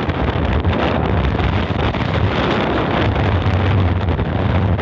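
Strong wind blowing over the microphone: loud, steady wind noise with a heavy low rumble.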